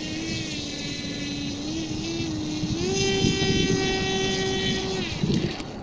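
Radio-controlled model helicopter's motor and rotor running with a steady whine, stepping up in pitch twice as it throttles up and lifts off, then cutting off near the end.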